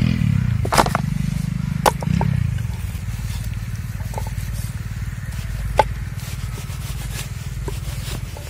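Kitchen knife cutting raw chicken on a wooden chopping board, with a few sharp knocks of the blade against the board, over a steady low motor drone.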